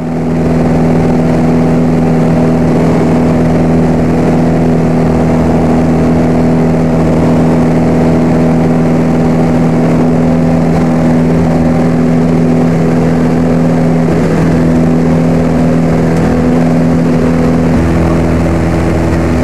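Cessna 172 piston engine and propeller droning steadily in cruise, heard from inside the cabin, with a slight change in tone near the end.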